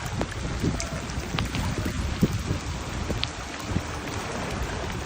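Typhoon rain falling steadily on surfaces, with scattered louder drops and taps over a low rumble.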